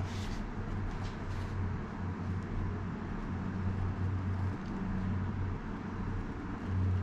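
Steady low hum and rumble of background noise that swells and dips, with a few faint clicks in the first second and a half.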